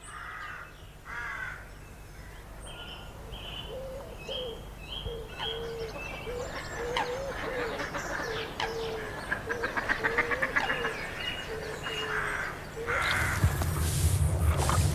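Birds calling: a run of short, low notes repeated about twice a second, with higher chirps and a fast rattling call over them. A louder low rumble sets in near the end.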